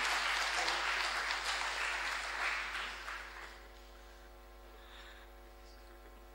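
Audience applauding, dying away about three and a half seconds in and leaving a faint steady hum.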